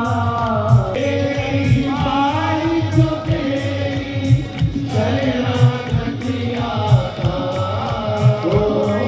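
Devotional, chant-like singing: a held, gliding melodic vocal line over a steady drum beat of about one and a half hits a second.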